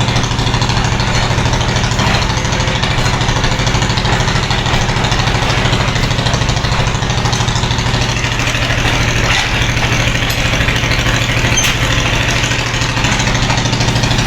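Diesel locomotive engine idling steadily at a station platform, a constant low engine hum with no change in speed.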